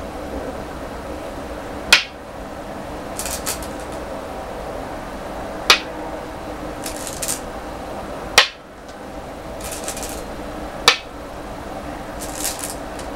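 Go stones placed onto a wooden Go board with four sharp clicks, one every two and a half to four seconds. Between the clicks, stones rattle in the bowl as the next stone is picked out.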